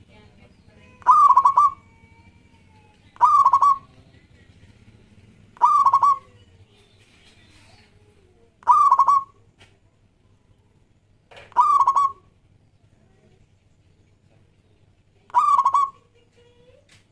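Zebra dove (local perkutut) singing its cooing song: six short rolling coos, each about half a second long, repeated every two to four seconds.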